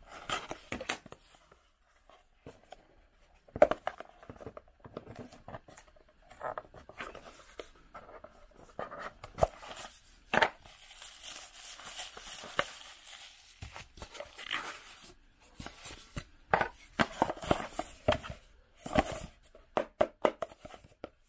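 Small cardboard box being handled and opened by hand: tape peeled off, the lid scraping as it slides, and bubble-wrap packaging rustling. It comes as scattered taps and scrapes, with a longer stretch of steady rustling in the middle.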